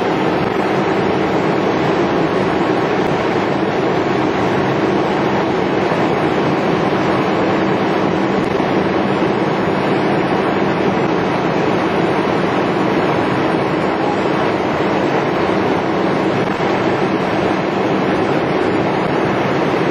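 Bucket truck's engine running steadily, a loud, unbroken drone that keeps the boom's hydraulics powered while the lineman works aloft.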